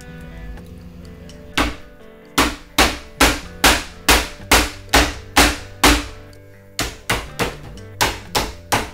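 Hammer blows on a wooden board: a quick run of about ten sharp strikes, a short pause, then about six more.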